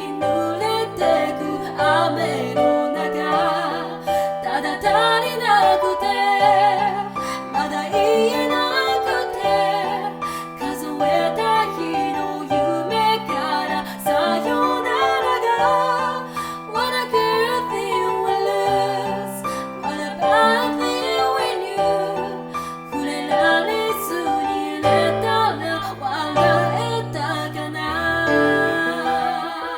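A woman singing with piano accompaniment, her voice wavering with vibrato on held notes.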